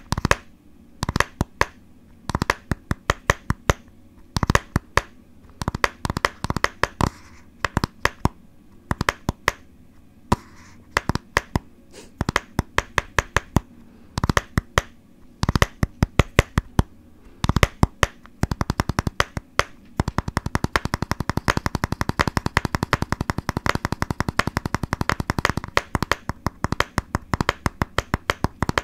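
Fingers tapping in rhythmic ASMR fashion, sharp taps in quick groups with short pauses between them. About two-thirds of the way through the tapping turns into a fast, almost continuous run of taps.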